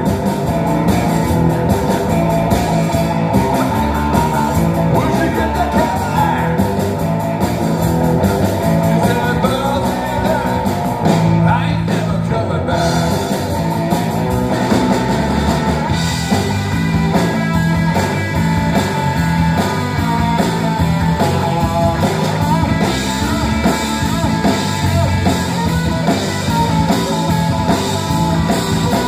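Live rock band playing: electric guitar, electric bass and drum kit, loud and continuous.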